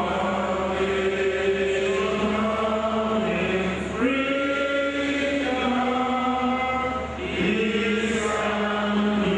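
Voices singing slow, drawn-out notes, each phrase sliding to a new pitch about every three to four seconds, over a steady low hum.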